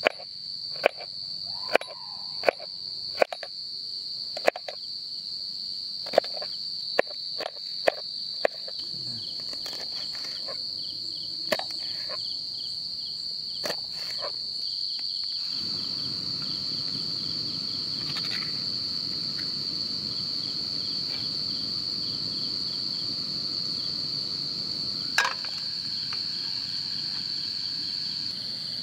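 Crickets chirring in a steady high trill throughout. Over it, in the first nine seconds, come about a dozen sharp knocks of a knife chopping vegetables on a board. About halfway in, a steady low rushing sound starts abruptly.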